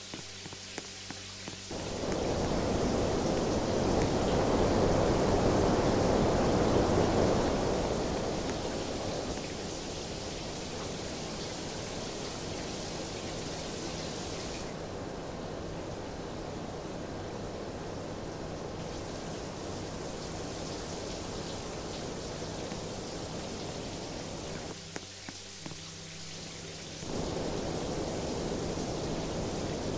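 Steady whooshing airflow from a running household fan, with a faint low electrical hum. The sound changes abruptly several times: louder and fuller from about two seconds in, settling back around eight seconds, its hiss thinning for a few seconds midway, and switching to a quieter, hum-heavier sound shortly before the end.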